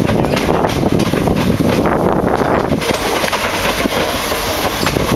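Renfe Cercanías electric commuter train passing at speed, a steady rolling rush of wheels on rail with a run of clacks from the rail joints.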